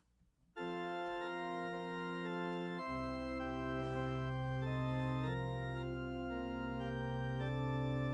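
Organ playing slow, held chords, starting about half a second in after a brief hush, with low bass notes joining about three seconds in.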